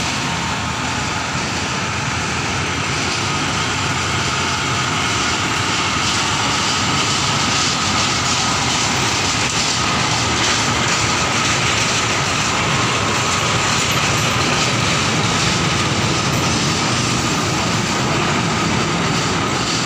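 Small narrow-gauge plantation locomotive hauling a rake of skip and tank wagons past on roadside track: its engine running steadily with the rumble of the wagons on the rails, getting louder over the first several seconds as it draws close.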